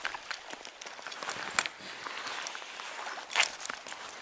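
Flowing stream water, a steady rush, with scattered light clicks and a brief louder rustle about three and a half seconds in.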